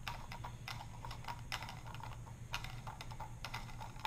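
Light, irregular clicks and scrapes of hard PVC plastic, several a second, as a 2-inch PVC solvent union is twisted loose by hand to open the fluid bed.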